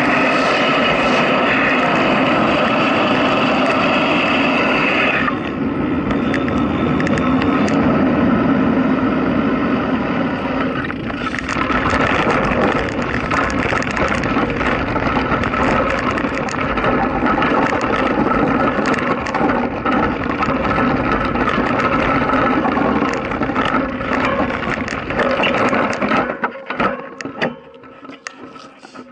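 Steady ride noise at road speed. From about ten seconds in, tyres crunch and crackle over loose gravel as the ride slows, and the noise drops away near the end as it rolls to a stop.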